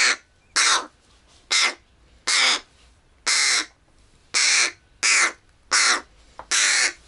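Fledgling crow giving short, harsh begging calls about once a second: a hungry young bird crying for food while it is being fed with tweezers.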